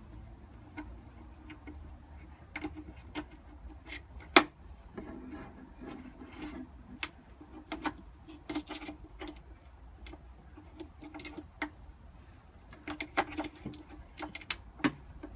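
Irregular small clicks and taps of hands working on wiring, handling wires, connectors and small parts, with one sharper click about four seconds in.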